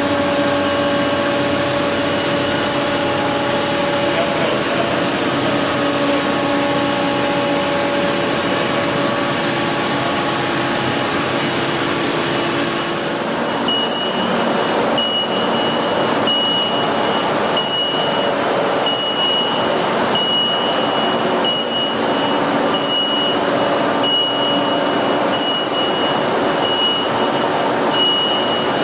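Large PAMA boring and milling machine running: a steady mechanical hum with several whining tones. About halfway through the lower whines stop and a high, on-and-off whine takes over while the valve body is turned on the machine table.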